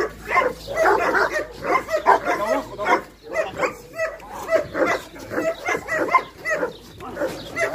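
Dogs yipping and whining in a rapid, continuous run of short, overlapping calls.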